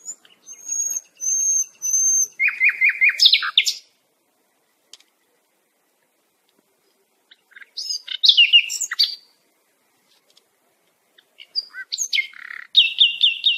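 A songbird singing in three phrases of clear whistled notes and quick repeated trills, with pauses of a few seconds between them.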